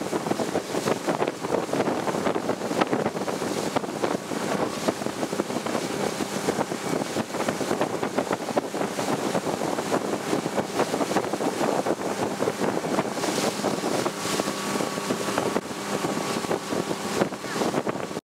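Motorboat engine running steadily under load while towing a water skier, with heavy wind buffeting on the microphone and the rush of the wake. The sound cuts off abruptly at the very end.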